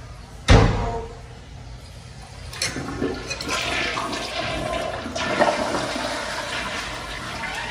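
Tank toilet flushing: a loud thump about half a second in, then rushing, swirling water from about two and a half seconds in that slowly eases off.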